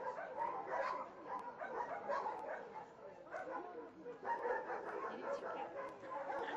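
Dogs barking and yipping in a dense, overlapping chorus of short calls.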